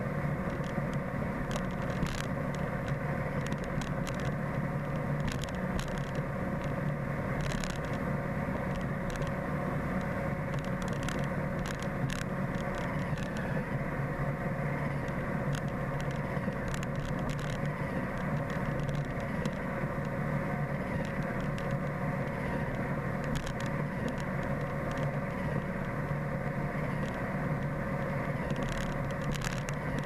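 iRobot Roomba 770 robot vacuum running, heard close up from a camera riding on it: a steady hum from its vacuum motor and brushes, with scattered clicks throughout.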